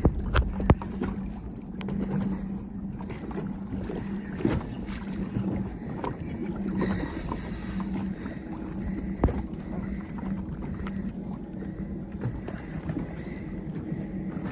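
Water lapping and slapping against the hull of a small fibreglass boat, with a steady low hum underneath and a few sharp knocks, the loudest two near the start. A brief high buzz comes about seven seconds in.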